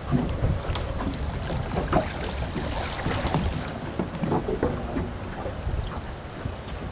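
Wind buffeting the microphone over moving river water next to a boat, a steady low rumble with a few light knocks.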